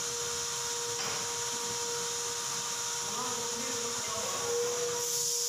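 A steady hiss with a constant humming tone under it, and faint voices in the background; the hiss grows louder near the end.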